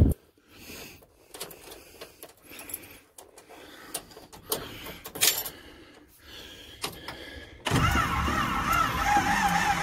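Faint clicks and rattles of keys and handling in the cab. About eight seconds in, the starter of the 1969 Ford C700's 330 V8 begins cranking slowly, its whine wavering up and down. The battery is too low to turn it over fast enough to start.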